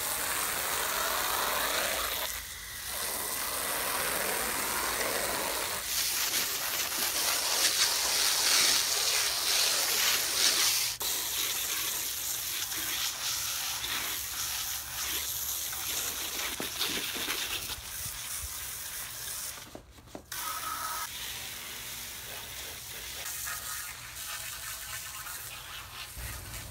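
Water spray from a hose nozzle hissing and splattering onto weathered cedar playset boards as they are washed. The spray is loudest a few seconds in and cuts out briefly twice.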